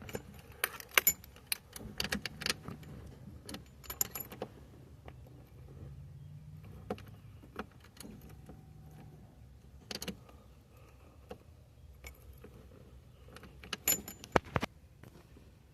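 Keys jangling on a key ring and sharp clicks as a key is worked in a newly fitted ignition lock cylinder on a Ford Ranger steering column, in scattered bursts with quiet gaps between.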